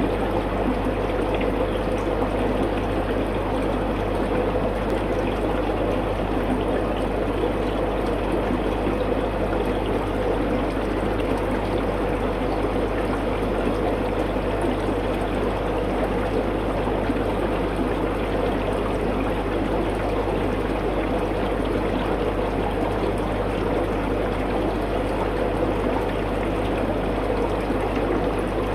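Aquarium water trickling steadily, the sound of the tank's filtration running, with a low steady hum underneath.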